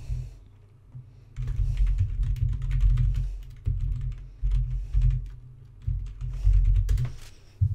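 Typing on a computer keyboard: a quick, dense run of keystrokes that starts about a second and a half in and stops just before the end.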